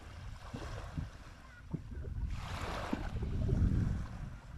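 Small sea waves lapping and washing onto a sandy shore, with a louder hissing wash about two and a half seconds in. Wind rumbles on the microphone throughout.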